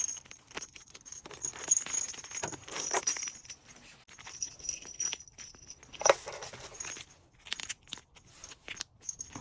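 Small items and their packaging being handled as an order is packed: irregular rustling with light clicks and taps, the sharpest click about six seconds in.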